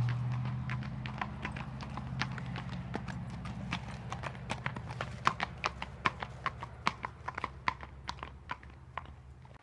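Hoofbeats of a Tennessee Walking Horse gaiting on a hard path: a quick, even patter of about three hoof strikes a second that grows fainter near the end as the horse moves away. A low, steady hum under them fades out over the first seconds.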